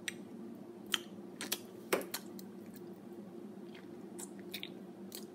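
Wet mouth clicks and lip smacks from someone swallowing and tasting a mouthful of thick chocolate syrup: about eight short, sharp, sticky clicks at uneven intervals. A faint steady hum runs underneath.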